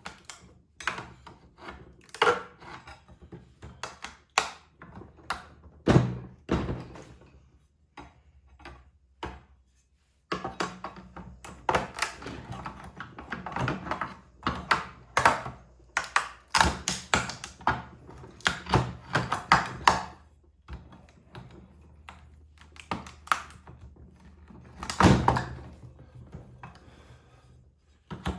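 Irregular knocks, clunks and clicks of hand tools and metal charger parts being handled while a Tesla onboard charger is taken apart. The heaviest thunks come about six seconds in and again near the end.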